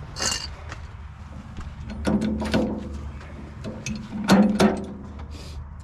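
Heavy metal knocks and scraping as a heated tractor rear axle hub is worked along its axle, with two louder ringing clunks about two and four seconds in over a steady low hum.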